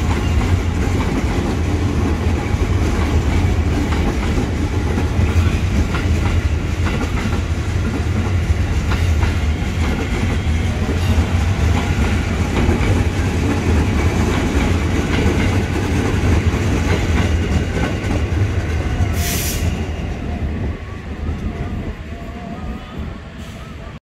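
KRL commuter electric train running past on ballasted track: a steady rumble of wheels on rail with the clickety-clack of rail joints, fading over the last few seconds as it moves away. A brief hiss sounds late on.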